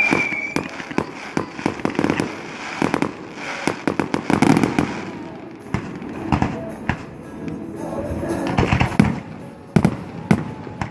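Fireworks going off: a rapid, irregular series of bangs and crackles, thickest about four to five seconds in and again around nine seconds.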